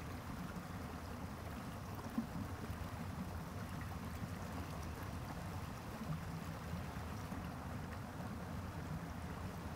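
A forest stream running over rocks: a steady, even rush of water. There is a single short tap about two seconds in.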